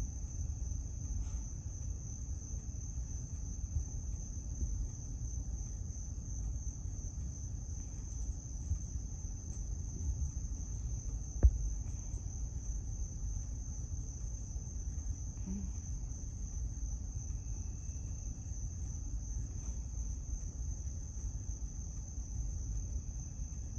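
Crickets trilling in a steady, high-pitched, unbroken chorus over a low rumble, with one sharp click about halfway through.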